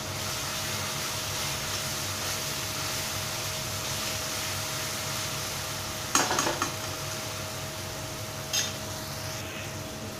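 Tomato-onion masala sizzling in oil in a metal kadai, with a metal spatula stirring, and clinking and scraping against the pan in a short cluster a little after halfway and once more near the end.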